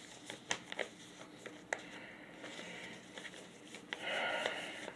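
Paper mini comics being handled: a few light clicks and taps, then a brief rustle of paper about four seconds in.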